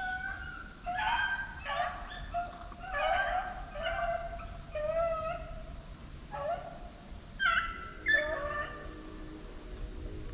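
Hunting dog giving a run of about ten short, high yelping cries, some bending in pitch.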